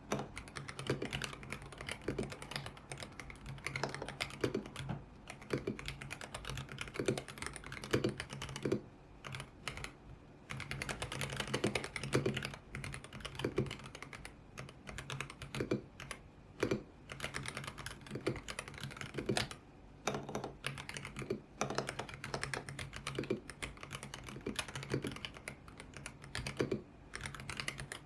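Typing on a YUNZII X75 Pro mechanical keyboard with Kaith Jellyfish switches and its original transparent keycaps: a steady run of key presses with a few brief pauses.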